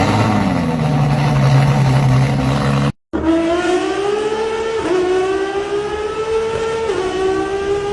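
Italian V12 car engine. It falls from a rev to a steady run for about three seconds, then, after a brief break, accelerates through the gears: the pitch climbs steadily and drops at each of two upshifts.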